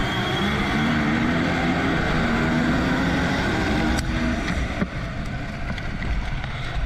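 Motocross bike engine at full throttle, accelerating hard off the start with other bikes running alongside. About four seconds in there is a sharp knock, and the engine note falls away as the bike slows for the first turn.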